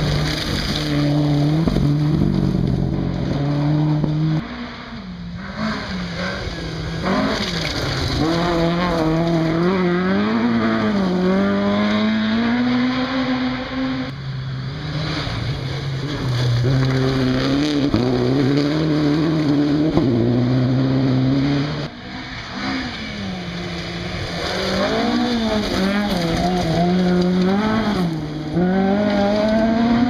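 Rally cars on a gravel forest stage, one after another, the first a Subaru Impreza WRC: engines revving up and down through gear changes as each car passes. The sound breaks off abruptly about four, fourteen and twenty-two seconds in, where one car's pass gives way to the next.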